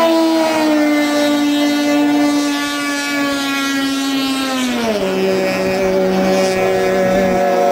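Racing hydroplane engine running at high revs, its note sliding slowly down in pitch, then dropping sharply about five seconds in to a steady lower note.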